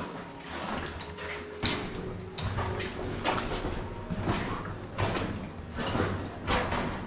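Irregular scraping and scuffing with scattered knocks: people moving on foot through a narrow mine tunnel.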